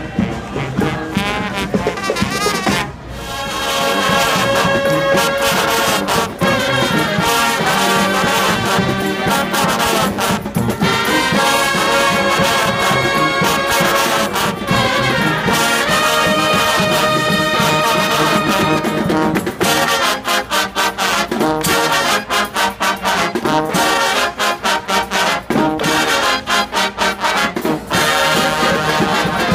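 Street brass band playing, with trombones and trumpets carrying the tune. After a brief dip about three seconds in, the full band comes back in loud, and in the last third the horns play short, choppy notes.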